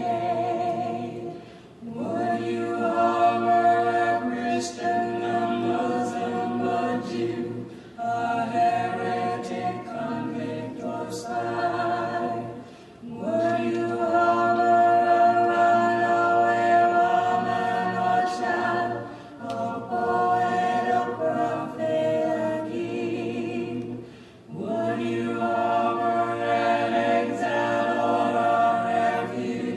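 A choir singing in long held chords, phrase after phrase, with a short break between phrases about every five or six seconds.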